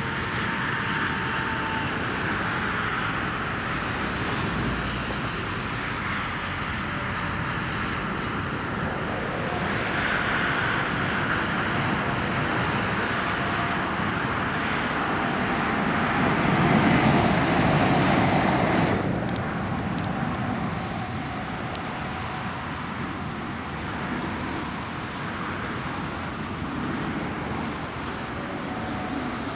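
A DB Class 1440 (Alstom Coradia Continental) electric multiple unit passing at speed, mostly steady rolling noise. The noise builds to its loudest about 17 seconds in, falls away suddenly as the train passes, and a few sharp clicks follow just after.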